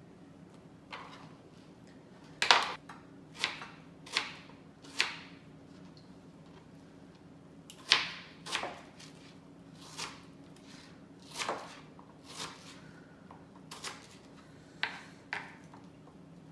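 Kitchen knife cutting mango on a cutting board: about a dozen sharp, irregular knocks, a half-second to two seconds apart, over a faint steady hum.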